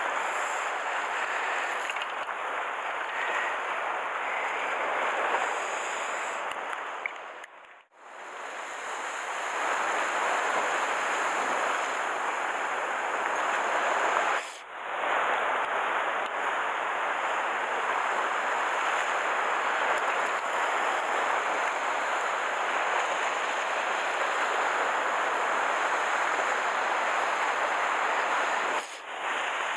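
Steady wash of sea surf on a rocky shore, mixed with wind. It drops out abruptly and fades back in about eight seconds in, again around fifteen seconds, and once more near the end.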